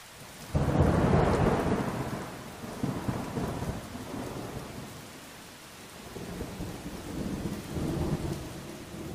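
Thunderstorm at night: a loud clap of thunder about half a second in that rumbles and fades over a couple of seconds, then weaker rumbles of thunder later on, over steady rain.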